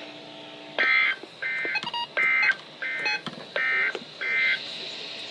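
Emergency Alert System end-of-message data tones: six short, buzzy digital bursts about two-thirds of a second apart, signalling the end of the alert broadcast.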